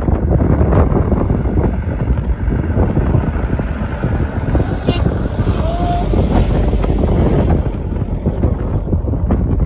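Diesel engine of a light truck loaded with sugarcane, running as it drives past close by on a dirt track.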